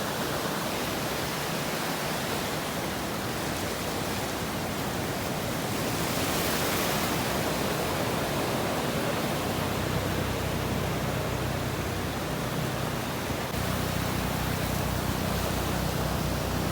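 Steady rushing noise. A low, even engine hum comes in about ten seconds in and grows stronger a few seconds later.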